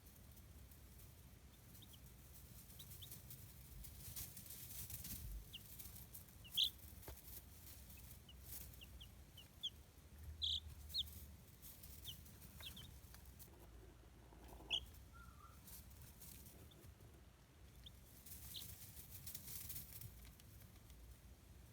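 Baby chicks peeping: scattered short, high peeps, a few of them louder, over a faint rustling.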